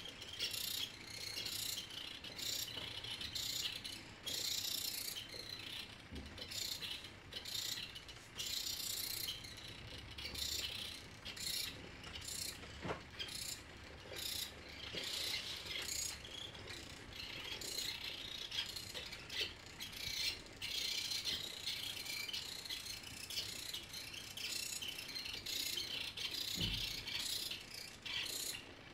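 A small line-following robot's DC gear motors whirring in short, irregular stop-start bursts as it steers itself along the line.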